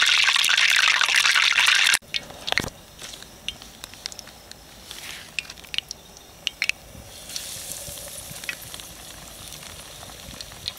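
Hot peanut oil in a cast iron pan: a loud steady sizzle for about two seconds that cuts off abruptly, then a quieter sizzle with scattered pops and crackles, the sizzle building again from about seven seconds in.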